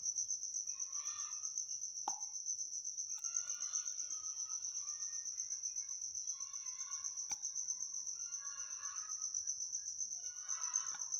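Insect chirping: one high, steady trill in rapid, even pulses, with fainter broken calls in the background and two light clicks.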